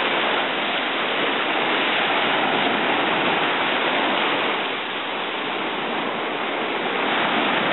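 Ocean surf breaking and washing up the beach: a steady rush of water that eases slightly about five seconds in.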